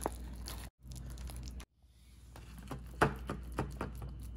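A wooden spatula scrapes and slaps thick, sticky quince paste into thin plastic clamshell containers. The plastic crinkles and clicks under it, with a cluster of sharper clicks about three seconds in.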